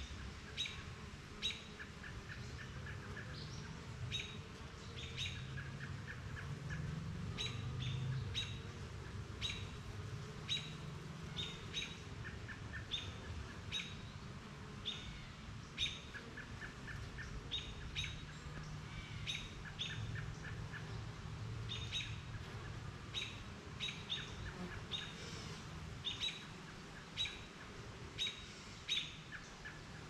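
Songbirds chirping: a sharp, high chirp about every second, with short rapid trills in between. Underneath runs a low, wavering hum of honeybees flying around the hive, swelling for a few seconds near the first third.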